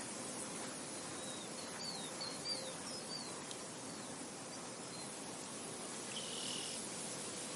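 Steady wind hiss with a bird calling in a quick series of short, falling chirps in the first half, and a brief insect buzz a little after six seconds.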